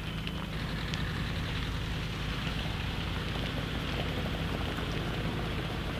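Steady hiss of water from a firefighting hose jet spraying onto a burning farmhouse and pattering down like rain, over a low steady hum. A few crackles from the fire come near the start.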